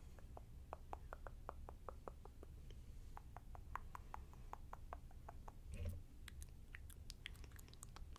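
A quick run of soft clicks, several a second, pausing briefly about two and a half seconds in, with a dull thump about six seconds in after which the clicks turn brighter and sharper.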